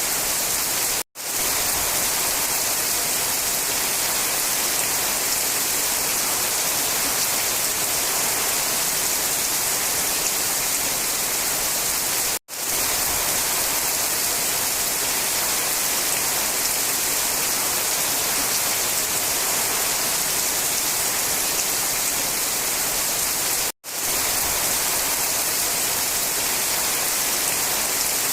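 Steady rain falling, a dense even hiss strongest in the high end, that cuts out to silence for an instant three times, about eleven seconds apart.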